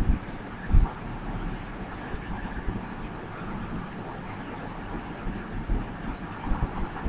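Computer mouse clicking in quick bursts of several clicks, with a dull thump about a second in.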